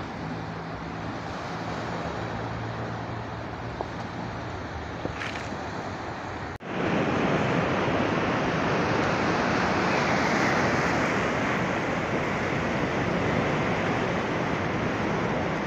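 Sea surf breaking and washing onto the shore, with a faint low hum under it at first. About six and a half seconds in, a cut to louder, closer surf with wind on the microphone.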